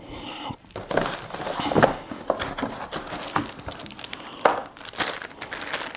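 Plastic bag crinkling and cardboard packaging rustling as a bagged cable and its cardboard insert are handled, with a few sharper clicks among the crackle.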